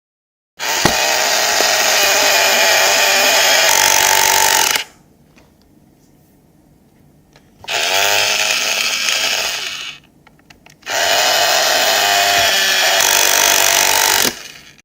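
Power drill running in three long bursts, stopping between them. The second burst starts with a rising whine as the motor spins up and fades out as it winds down, and a few faint clicks sound in the pauses.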